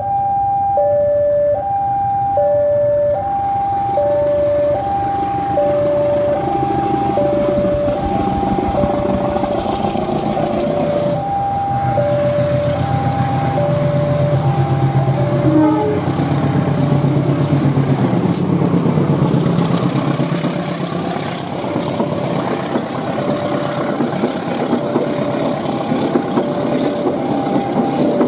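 A level-crossing warning alarm repeats an alternating two-tone signal. About halfway through, a CC 203 diesel-electric locomotive passes under full throttle with a loud, low engine sound. It is followed by the rushing of the coaches' wheels on the rails as the alarm carries on.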